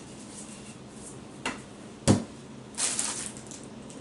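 Metal detector parts being handled during assembly: a click, then a sharper knock, then a brief clatter of small rattling clicks.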